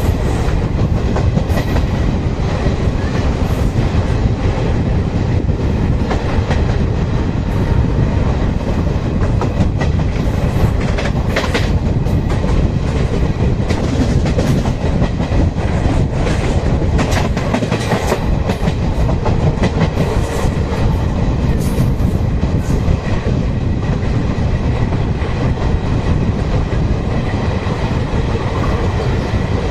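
Passenger train running along the track, heard from aboard the coach: a steady rumble of wheels on rail with irregular clacks as the wheels run over rail joints and points.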